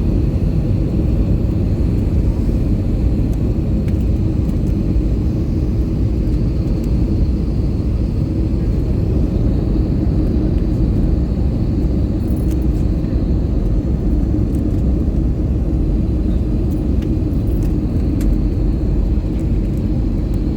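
Steady low rumble of a passenger airliner heard from inside the cabin during the landing, with a faint high whine.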